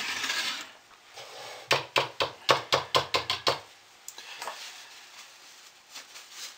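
A run of light, quick clicking taps, about five a second for some two seconds, from a small wire whisk knocking against a plastic pitcher of coloured soap batter.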